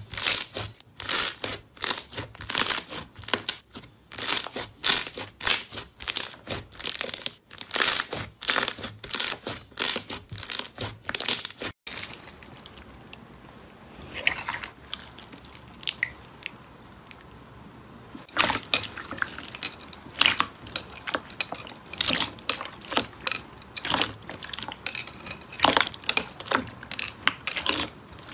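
Hands kneading and pressing a thick white slime, with crackling pops of trapped air about twice a second. Near the middle the sound breaks off into a much quieter stretch of soft handling. From about two-thirds of the way in, crackling, squishing pops return as clear slime full of white foam beads is pressed.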